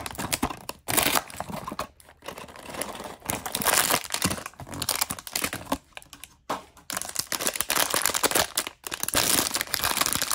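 Plastic and foil blind-bag packaging crinkling as hands unwrap it and pull out the inner wrapper, in irregular bursts with short pauses.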